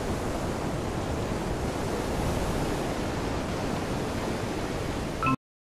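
Steady rushing noise of wind buffeting the camera microphone. About five seconds in there is a brief louder knock, and then the sound cuts off dead to silence.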